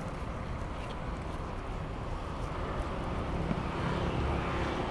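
Steady low background rumble with a hiss over it, like outdoor traffic noise, with no distinct events.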